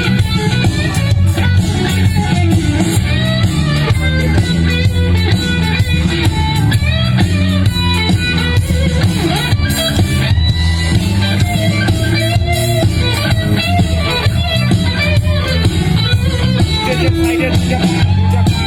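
Blues-rock song with guitar and heavy bass playing loud through a JBL line-array PA system, in an instrumental stretch without singing.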